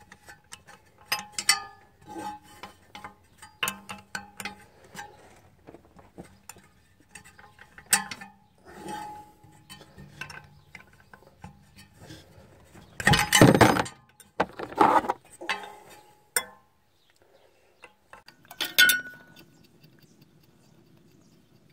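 A steel wrench clicking and clinking on the fan clutch's mounting nuts at the water pump pulley as the nuts are worked loose. There is a louder metallic scraping clatter about two-thirds of the way through, another soon after, and a sharp knock near the end.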